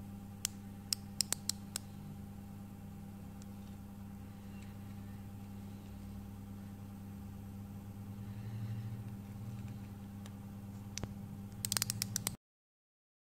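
Outside micrometer being closed on the thin wall of a copper cone: about five sharp metallic clicks in the first two seconds and a quick run of clicks near the end, over a steady low hum.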